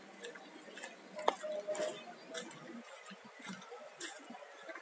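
Footsteps walking on brick paving, with light irregular clicks and clinks.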